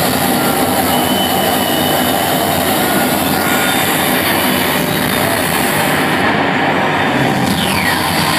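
Loud house music playing over a nightclub sound system, heard as a dense, muddy wash, with a falling sweep near the end.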